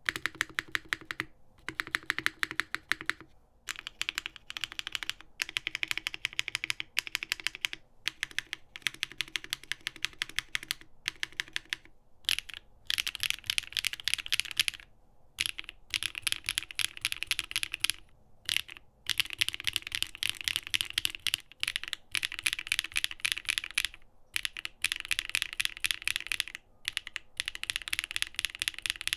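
Fast typing on a Mode Sonnet mechanical keyboard fitted with linear switches: dense runs of bright key clacks, broken by short pauses every few seconds.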